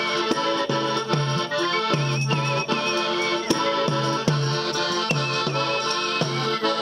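Live folk dance music led by an accordion, with pulsing bass notes and held chords, over a steady beat of tambourines and a high wavering melody line.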